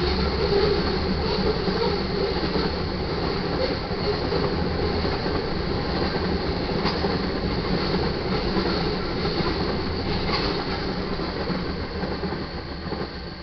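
Freight train cars rolling past on the rails: a steady rumble of wheels on track with a few sharp clicks. It fades away near the end.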